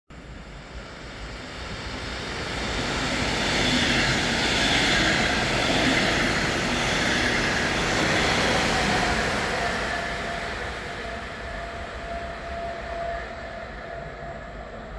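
DB Class 146.2 electric locomotive hauling double-deck coaches past the platform: the rumble of the train on the rails swells over the first few seconds, is loudest around the middle, and fades away towards the end.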